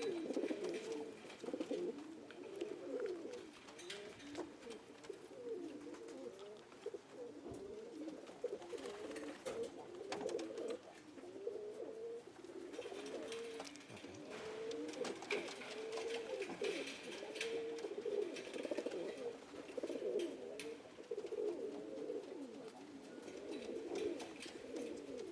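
Several domestic pigeons cooing, their calls overlapping without a break, with a few faint taps among them.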